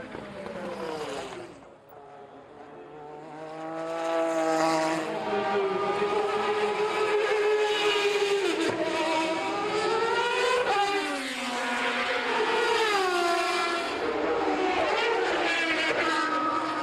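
Racing car engine at high revs. It is faint at first, grows loud about four seconds in, and rises and falls in pitch several times, with a sharp drop about eleven seconds in.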